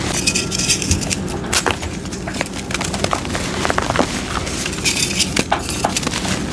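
Pink reformed gym chalk crumbled and crushed by hand over a bowl of loose chalk powder: a dense run of dry crackly crunches and clicks with soft powdery sifting between them.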